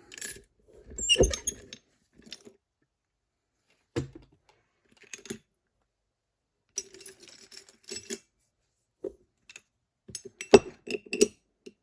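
Scattered small metal clicks and clinks of a picked challenge lock being taken apart (gutted) by hand, its retaining C-clip and inner parts coming out, with a sharper knock near the end.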